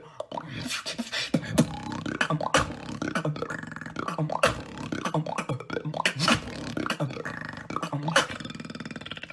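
Human beatboxing in a rhythm freestyle: sharp snare-like strikes every second or two over a continuous low bass line.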